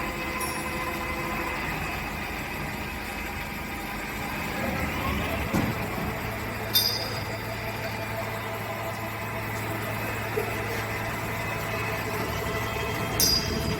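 CNC machining centre running as it machines an electric motor housing: a steady machine hum with several held tones, a rising whine about five seconds in that settles into a steady low hum, and two sharp metallic clinks, one about seven seconds in and one near the end.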